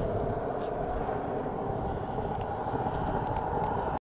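Small gas-turbine engine of a radio-controlled Scorpion model jet running, a steady rush with a thin high whine that rises slowly in pitch as it spools up. The sound cuts off suddenly near the end.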